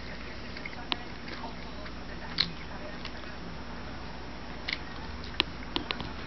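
Mouth sounds of a person chewing tuna sushi: scattered short clicks and smacks, a few of them close together near the end.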